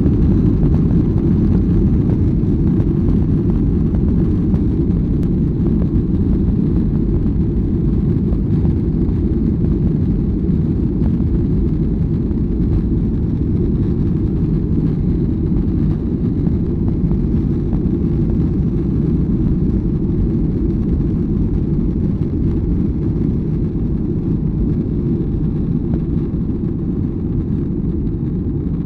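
Boeing 737-800 cabin noise during a takeoff: its CFM56 turbofan engines running at takeoff power with a steady deep rumble, heard inside the cabin and slowly getting a little quieter.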